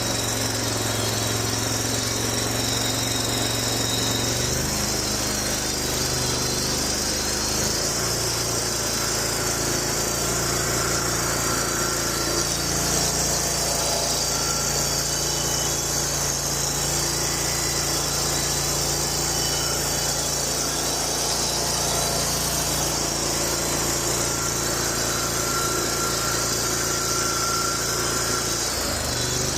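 John Deere Z930M zero-turn mower's V-twin engine running steadily at raised throttle, its speed shifting a few seconds in and then holding. It keeps running instead of dying, with the new fuel filter fitted.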